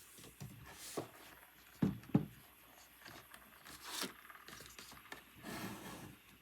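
Irregular handling sounds at a desk: a few light clicks, two sharp knocks in quick succession about two seconds in, then soft rustling and brushing swishes.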